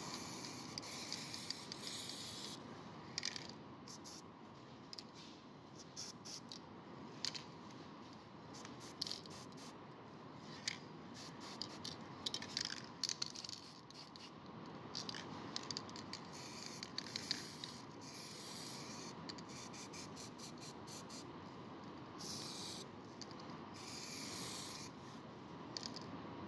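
Aerosol spray paint hissing in short bursts, with scattered sharp clicks and rubbing noises between them.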